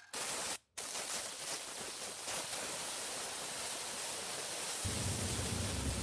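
Steady hiss of background noise, broken by two brief dropouts to silence near the start; a low hum joins it about five seconds in.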